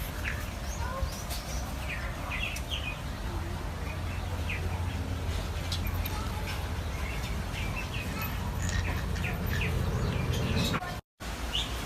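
Frogs calling in many short, separate chirps over a steady low rumble, with a brief dropout to silence near the end.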